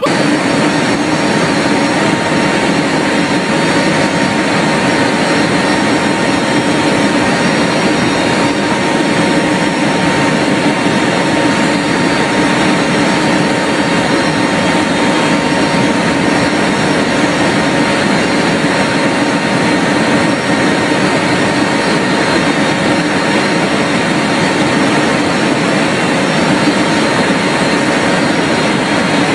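Military transport aircraft in flight, heard from the cargo hold with the rear ramp open: a loud, steady engine drone with a few constant tones over a rush of air, unchanging throughout.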